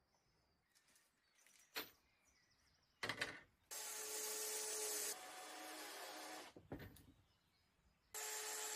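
Cordless drill driving screws into a wooden panel: two runs of the motor with a steady whine. In the first run the pitch drops partway through. Knocks and a sharp click come before it.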